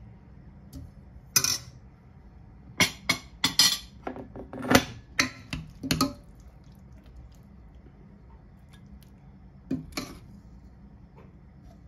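Steel ladle clinking and scraping against a steel cooking pot and a ceramic bowl while lentil stew is served out: a sharp clink about a second in, a quick run of clinks over the next few seconds, and two more near the end.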